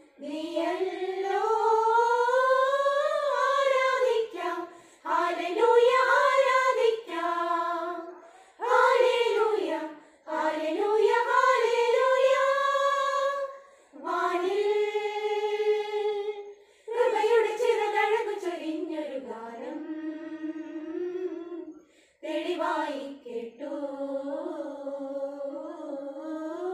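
Women's choir singing a Christmas carol in phrases a few seconds long, with short pauses for breath between them.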